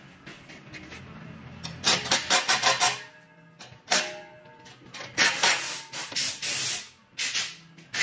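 Cordless impact driver tightening the bolt of an exhaust-stack band clamp in trigger bursts: a quick string of short bursts about two seconds in, a single blip, then a longer run of hammering in the second half.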